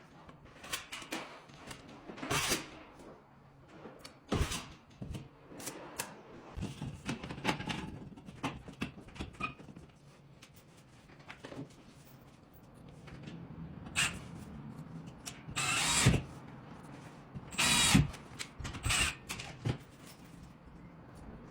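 Irregular tool noises from drywall and plastering work: scrapes and knocks, with a few louder bursts of about half a second to a second, the strongest about four, sixteen and eighteen seconds in.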